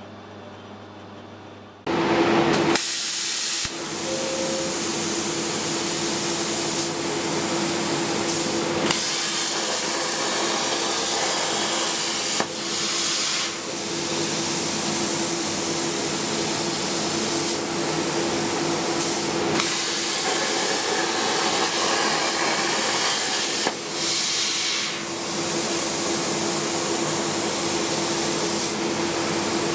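Plasma cutter cutting steel plate: a loud steady hiss of the arc and air with a steady tone under it. It starts abruptly about two seconds in and dips briefly twice.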